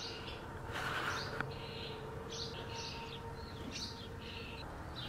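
Small birds chirping, a string of short, high chirps repeated every half second or so. A brief scuff and click come about a second in.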